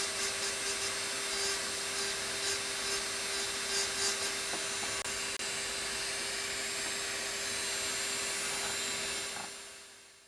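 Handheld engraving drill with a fine burr grinding into an optical crystal glass block. A steady tone runs over a gritty scratching, with sharper scratches in the first few seconds, and the sound fades out near the end.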